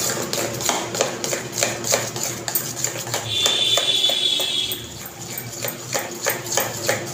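A small metal whisk clicking and scraping against a steel bowl, about three strokes a second, as thick strained yogurt is beaten smooth and creamy for shrikhand. A high-pitched whine sounds for about a second and a half near the middle.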